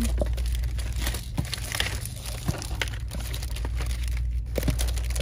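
Rustling and crinkling handling noise with a few small clicks, over a steady low hum.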